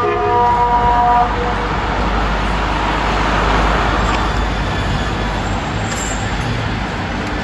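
A KTG-10 civil-defence siren's steady low water-alarm tone, which stops about a second in. An even background rumble, like road traffic, continues after it.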